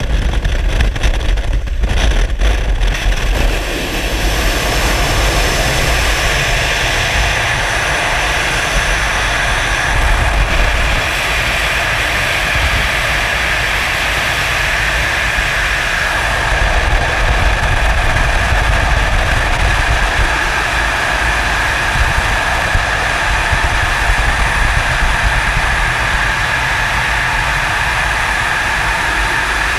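Loud steady wind roar over a GoPro camera in skydiving freefall, with a steady whistle running through it. The first few seconds, at the open door of the jump aircraft, carry the slipstream and engine noise, broken by a few knocks as the jumpers exit.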